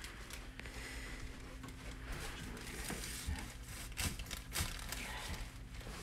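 Hands working on a patient's back on a chiropractic treatment table: shirt fabric and headrest paper crinkling, with a few short knocks about three to four and a half seconds in, over a steady low hum.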